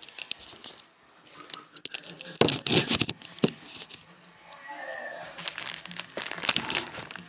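Crackling, rustling handling noise from fingers moving over a phone right at its microphone. It comes in three bursts, the loudest in the middle.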